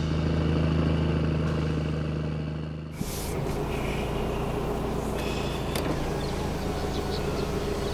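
A held closing music chord rings and fades for about three seconds. It is cut off by the steady hum of a car engine idling, heard from inside the cabin, with a few faint clicks.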